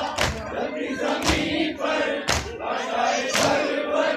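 Crowd of Ashura mourners chanting together, with a sharp beat struck in unison about once a second.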